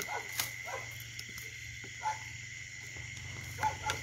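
Handling of a metal snake tong among bamboo and brush as a snake is pulled down: a few short clicks and rustles, over a steady high-pitched whine.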